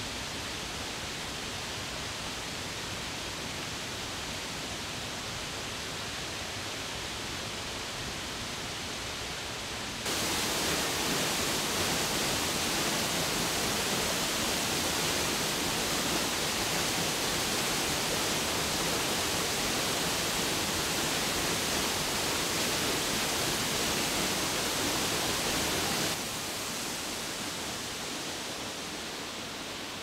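Waterfall's falling water rushing steadily. It turns abruptly louder and brighter about a third of the way in and drops back to a lower, more muffled rush near the end.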